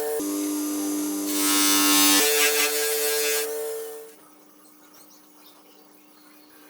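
Small electric power tool running with a steady buzzing hum. Its pitch drops for about two seconds, with a harsh hiss over the middle, then rises again, and the tool winds down and stops about four seconds in.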